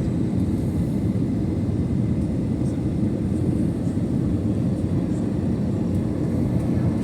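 Airbus A320 in flight on the approach: a steady low roar of engines and airflow, as heard inside the cabin.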